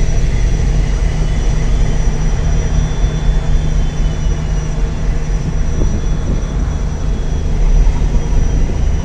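Passenger ferry's engine running with a steady low rumble.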